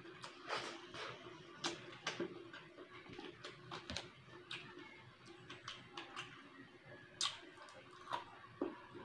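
Close-up eating sounds of a man eating rice and fish by hand: chewing and lip-smacking, with many short, irregular wet clicks over a faint steady hum.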